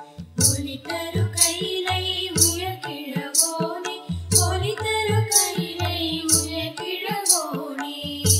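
Tamil devotional hymn music in Carnatic style: a gliding melody over a deep drum beat, with a bright high stroke about once a second.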